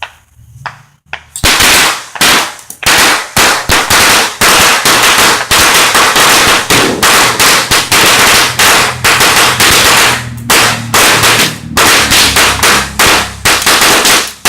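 A string of firecrackers going off in rapid, loud cracks, many per second, starting about a second and a half in and running on without a break.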